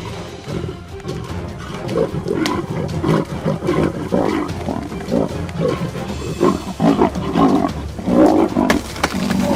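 Big cat growling and snarling in repeated loud bursts, from about two seconds in and heaviest near the end, over steady background music.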